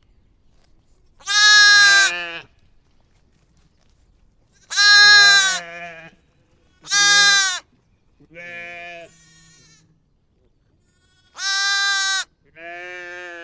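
Sheep bleating: six separate bleats, four loud ones and two fainter ones, with short quiet gaps between.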